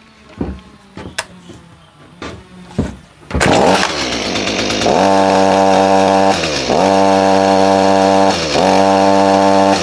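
Stihl MS 162 two-stroke chainsaw cranked, catching about three seconds in after a few knocks, then run at throttle, its pitch dipping and recovering twice. The engine is struggling to pull an aftermarket Kakei chain around the bar; the owner believes the chain is a cheap knockoff whose drive links are a tiny bit too large for the bar groove and bind.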